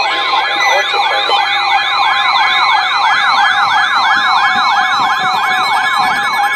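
Electronic siren-style alarm from a weather alert radio, its pitch sweeping rapidly up and down about four times a second over steady alert tones. It sounds as a new warning comes in.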